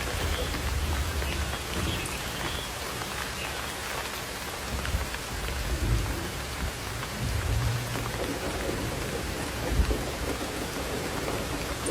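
Torrential rain pouring down in a steady, dense hiss, with a few short low thumps rising out of it in the middle and near the end.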